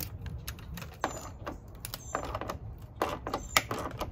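Irregular clicking and short scraping rasps of hand work on a Jeep Wrangler hardtop: a wiring harness and its plastic fittings are handled and a driver works at a fitting. The loudest clatter comes about three seconds in.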